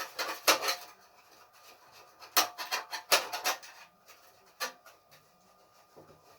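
Rubbing and scraping strokes on a gas stove's parts as grime is wiped and cleaned off, coming in short irregular clusters.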